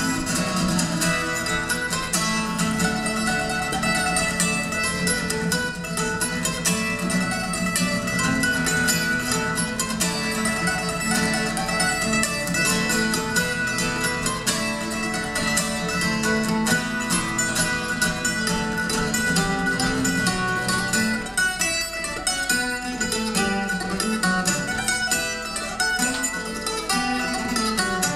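Instrumental passage of an Irish folk song played live on plucked acoustic string instruments, a guitar among them, with no singing.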